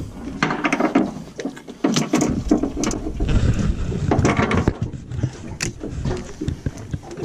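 Irregular knocks and clatter of handling on an aluminium boat's deck as a freshly caught snapper is dealt with at the bin, over a low rumble.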